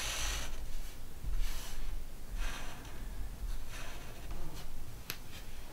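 Felt-tip permanent marker drawing on paper: a few short, scratchy strokes as lines are drawn, with a sharp click near the end.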